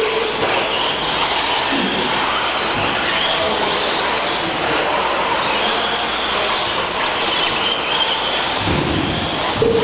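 Electric brushless RC stadium trucks racing on a dirt track: a steady rush of motor and drivetrain noise with a high whine that rises and falls as the trucks speed up and slow down.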